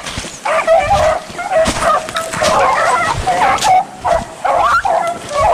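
A pack of beagles baying together on a rabbit's scent, many short calls overlapping with no break: the hounds are running a rabbit.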